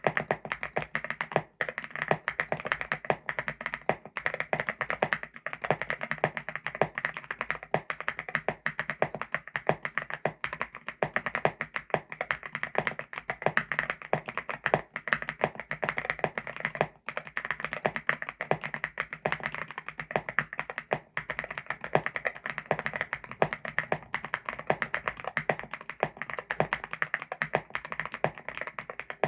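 Continuous fast typing on a CIDOO ABM081 Stellar 75% mechanical keyboard with CIDOO Carda switches: a dense stream of key clacks with a few brief pauses.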